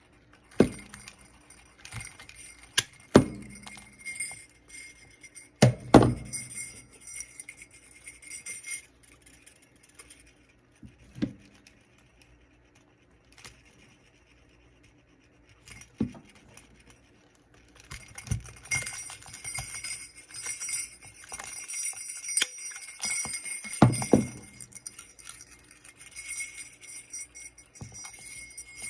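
Sleigh bells on a leather belt jingling as they are handled, with scattered knocks; about two-thirds of the way in the jingling becomes continuous and keeps going.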